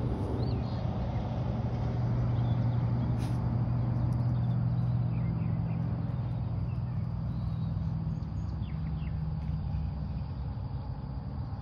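A vehicle engine running steadily as a low hum, strongest in the middle and easing off toward the end. Faint bird chirps can be heard over it.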